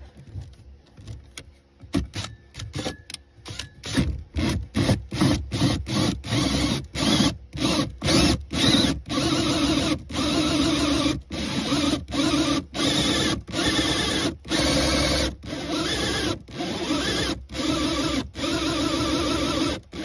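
Drill spinning a hole saw into the plastic HVAC heater box of a 2007 Dodge Ram 3500, cutting an access hole to reach the clogged evaporator. It runs in many quick trigger pulses at first, then in runs of about a second with short breaks.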